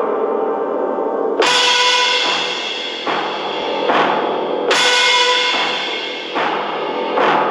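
Godzilla-style film monster roar sound effects: layered, many-toned blasts that each start abruptly and ring on as they fade, a new one about every one and a half to two seconds.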